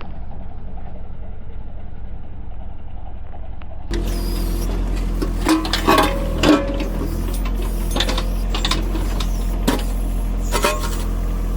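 John Deere compact tractor's diesel engine running steadily. About four seconds in, a series of sharp clanks and knocks starts over the engine, the loudest around six seconds in.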